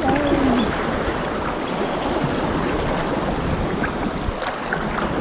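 Sea water rushing and splashing around a kayak in surf, with wind buffeting the microphone: a steady, dense rushing noise.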